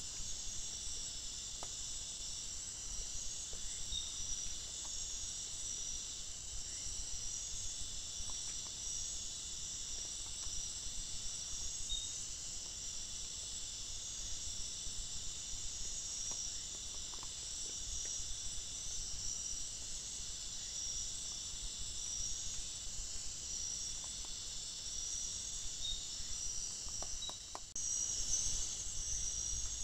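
Steady high-pitched chorus of crickets and other night insects, with a few faint clicks. About two seconds before the end it drops out briefly and comes back a little louder.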